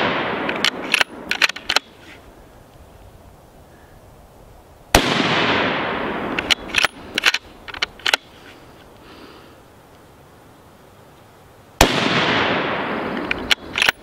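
Two shots from a Remington 700 bolt-action rifle in 6mm Creedmoor, about seven seconds apart, each with a long echo. Each shot is followed by a quick run of sharp metallic clicks as the bolt is worked to eject the case and chamber the next round. It opens on the echo and bolt clicks of a shot fired just before.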